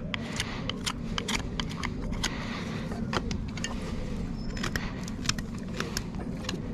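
Irregular sharp clicks and snips, a few a second, from farrier's tools working on a horse's hoof, over a steady low hum.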